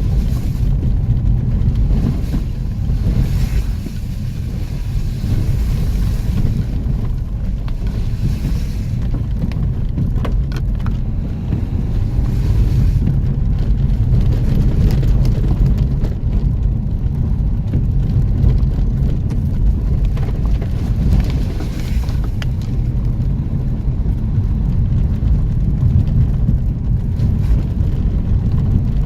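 Off-road vehicle driving: a steady, loud, low engine and drivetrain rumble, with a few short knocks from the rough ground.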